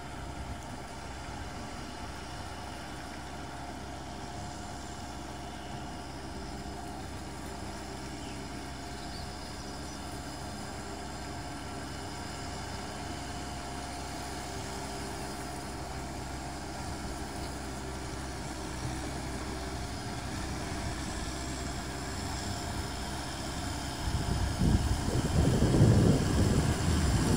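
Kubota M6040SU tractor's four-cylinder diesel engine running steadily under load while it cultivates a flooded paddy, heard from a distance and slowly growing louder as the tractor comes closer. Over the last few seconds a louder, uneven low rumble comes in.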